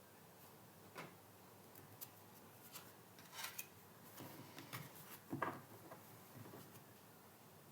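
Oracle cards being shuffled and handled by hand: faint, irregular clicks and short rustles, a few each second.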